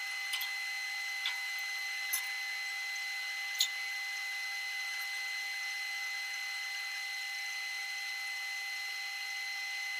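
TIG (GTAW) arc welding a wide-gap stainless steel pipe joint, held at main current only without the lower background current: a steady hiss with a constant high whine, and a few faint ticks in the first few seconds.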